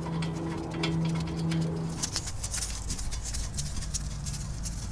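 Light metallic clicks and ticks as a wheel hub bearing bolt is threaded in by hand through the steering knuckle. A low, steady tone runs in the background for the first two seconds and returns near the end.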